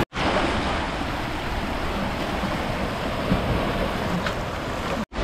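Sea surf washing against a rocky shore: a steady rush of breaking waves, in rough seas with big swells.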